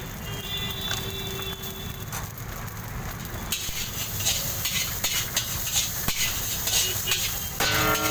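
Metal spatula scraping and clattering against a large steel wok as egg fried rice is stirred and tossed, with the rice sizzling; the scraping starts about three and a half seconds in, over a low steady rumble. A steady pitched tone comes in just before the end.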